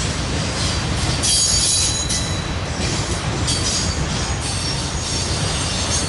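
Freight train of autorack cars rolling past with a steady rumble of wheels on rail, and high-pitched wheel squeals that come and go, the strongest about a second in.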